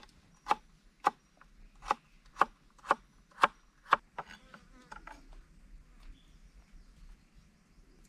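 Seven sharp chopping strikes, about two a second, followed by lighter clicks and rustling.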